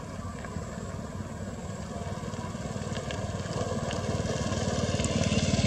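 Airbus A320 jet engines at climb power: a low rumbling roar with a rapid pulsing crackle, growing steadily louder.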